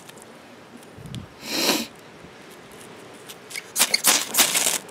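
A short sniff about a second and a half in, then several quick, rasping scrapes of a steel striker down a thick half-inch Uberleben Kraftig XL ferrocerium rod near the end, throwing sparks onto birch bark tinder.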